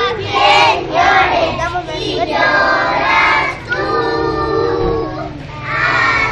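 Children's voices singing a song, the melody moving at first and then holding long notes toward the end.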